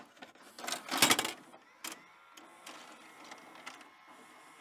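Videotape player mechanism: a few clicks and a louder clattering whirr about a second in as a tape is loaded and starts to play, then a faint steady hum with a thin whine.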